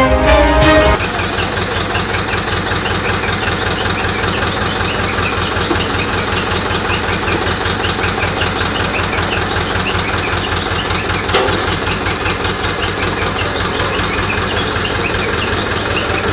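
A recovery crane's engine running steadily at idle, with a fast, even low throb. The tail of a music jingle fades out in the first second.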